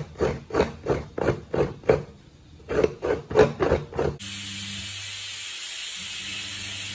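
Half a coconut being scraped on a hand coconut grater in quick, even strokes, about three a second, with a short pause about two seconds in. About four seconds in the scraping stops and gives way to a steady hiss.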